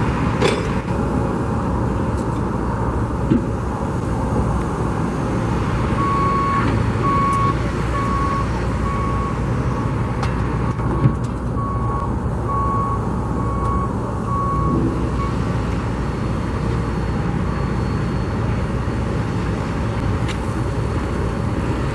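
Steady low rumble of vehicles, with a construction vehicle's reversing alarm beeping a little over once a second for about ten seconds from some six seconds in. A single brief knock comes near the middle.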